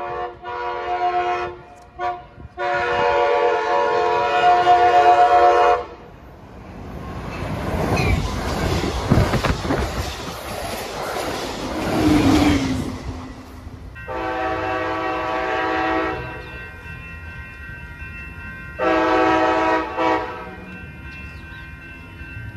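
Amtrak Pacific Surfliner train sounding its several-note horn in long blasts as it approaches, then rushing past with a loud rumble and clatter of wheels on the rails from about seven to thirteen seconds in. The horn sounds twice more after it passes, one long blast and one short.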